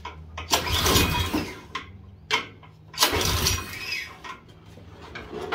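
LCT Storm Force 179cc single-cylinder snowblower engine being pull-started twice with its recoil starter, the rope whirring and the engine turning over without staying running. A few short clicks come between the pulls. The owner guesses it is not getting fuel and may need a fuel pump.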